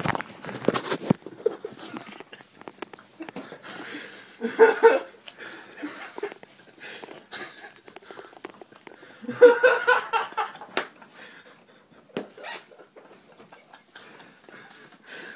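Weimaraners nosing about, with rustling and scattered clicks from the dogs moving and the phone being handled. Two short bursts of stifled laughter break in, about four and ten seconds in.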